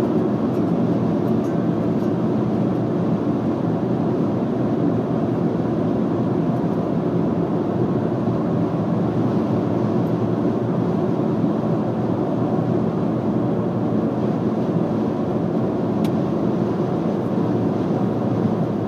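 Steady road and engine noise inside a car cruising at highway speed: an even, low rumble of tyres and wind that does not change.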